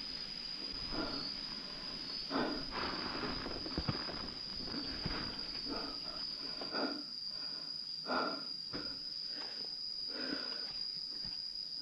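Insects droning in one steady high-pitched note, with soft irregular rustles and steps roughly every second.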